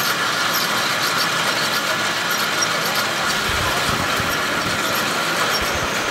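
Motorized coir-spinning machine running steadily as it twists coir fibre into yarn and winds it onto bobbins: an even mechanical whirr with a steady high tone running through it, and a few faint low knocks in the second half.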